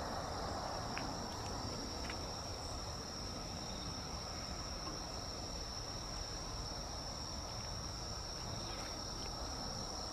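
Insects trilling in one continuous, steady high-pitched note, over a low, even background rumble.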